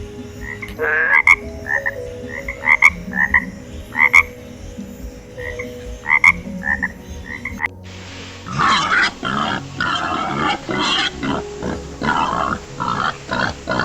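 Animal calls: for about the first eight seconds, short separate chirping calls come a second or so apart. Then, after an abrupt change, a dense run of rapid, rasping pulsed calls follows.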